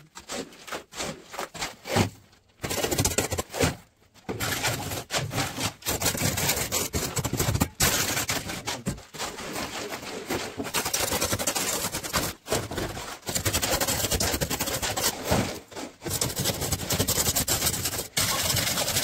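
A steel shovel scraping and knocking through wet concrete and gravel, then the continuous rattling churn of a concrete mixer running, which drops out briefly a few times.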